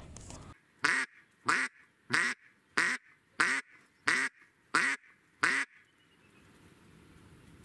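A live decoy hen duck calls a series of eight loud, evenly spaced quacks, about one and a half a second, the calling that draws drakes in to the decoys.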